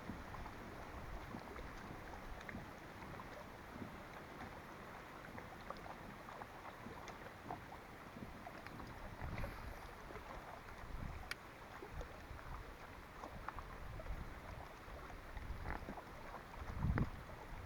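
Steady wind noise with water lapping, broken by a few light knocks, the heaviest near the end.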